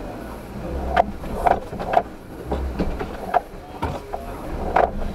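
Suzuki Jimny crawling slowly up a rock slab, heard from inside the cabin: a low engine rumble under irregular knocks and creaks from the body and suspension as the tyres climb the rock.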